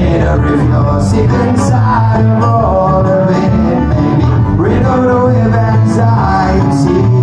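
A live band playing an upbeat folk song loud through a venue PA, led by guitars.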